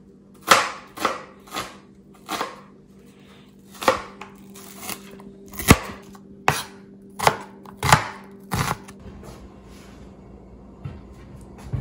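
Chef's knife chopping onions on a plastic cutting board: about ten sharp, irregular strokes roughly a second apart, stopping about nine seconds in, over a faint steady low hum.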